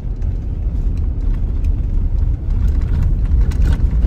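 Car driving slowly on a sandy dirt track, heard from inside the cabin: a steady low rumble of engine and tyres, with faint scattered ticks.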